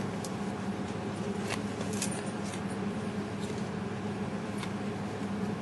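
Light clicks and faint rustling of trading cards being handled and flipped through, over a steady low background hum.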